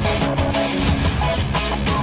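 Background music: a loud rock song with strummed electric guitar and a steady beat.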